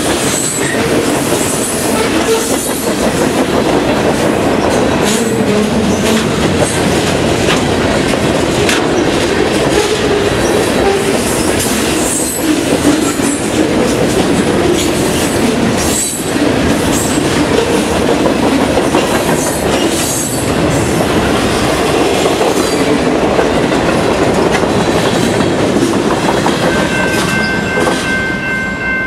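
Freight train cars rolling past close by: a steady rumble of wheels on rail with repeated clicks as the wheels cross rail joints. Near the end a steady horn tone comes in.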